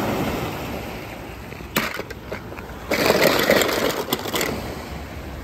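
Surf washing on a rocky shore, with a sharp click about two seconds in and then, about three seconds in, a louder stretch of clattering as toy cars rattle against each other in a plastic bucket.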